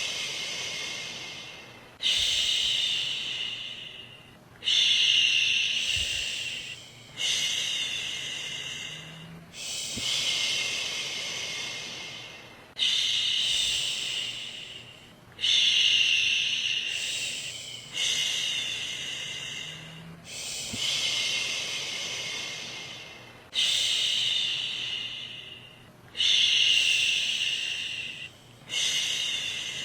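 A woman's voice shushing "shhh" over and over, as a soothing sleep sound for a baby. Each shush starts sharply and fades away, and a new one comes about every two to three seconds.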